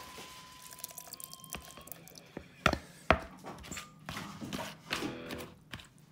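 Water dripping and splashing as it is added to a jar of salted shredded cabbage, with scattered small clicks and two sharp knocks close together near the middle.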